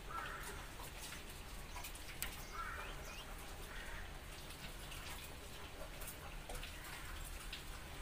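Caged budgerigars chirping and chattering softly. Two short warbled calls stand out, one near the start and one about two and a half seconds in, over scattered sharp ticks.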